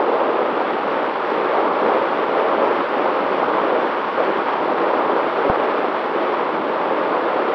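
Steady rushing noise of airflow and motor from the onboard camera of a long-range FPV drone in flight, with a faint steady hum underneath.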